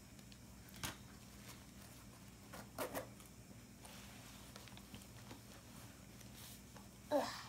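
Faint rustling and scuffing as a sequined high-top sneaker is handled and pulled onto a foot, with a few soft clicks and one brief louder sound near the end.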